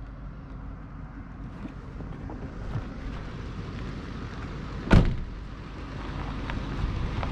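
Pickup truck engine running as the truck approaches slowly over a dirt and gravel lot, its low rumble growing louder. A single sharp thump about five seconds in.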